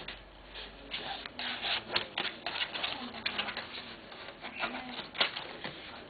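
Irregular clicks and rustles of jigsaw lamp pieces being slotted and pushed together by hand.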